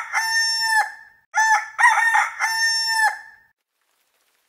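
Rooster crowing twice: the held end of one cock-a-doodle-doo, then a second full crow that stops about three and a half seconds in.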